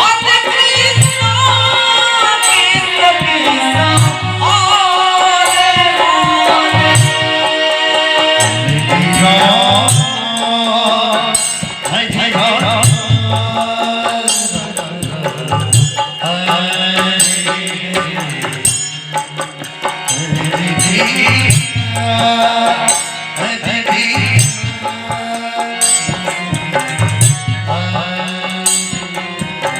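Kirtan devotional music: a voice singing a wavering melody over a hand drum keeping a steady repeating beat, with rattling percussion.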